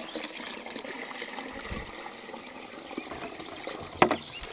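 Water pouring and trickling out of a tilted plastic bucket into a pond, with a sharp knock about four seconds in.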